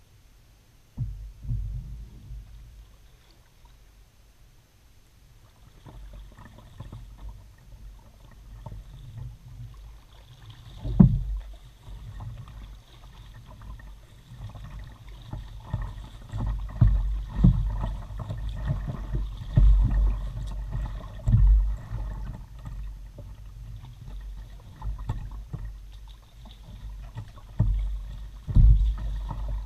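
Kayak being paddled, heard through a bow-mounted action camera: irregular low, muffled knocks and water sloshing against the hull with each stroke. It starts about a second in and gets busier and louder from about six seconds in, with a few sharper knocks.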